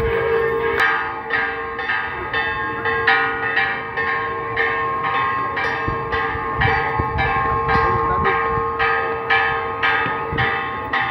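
Church bells ringing a rapid festive peal, about two strikes a second, each stroke ringing on into the next.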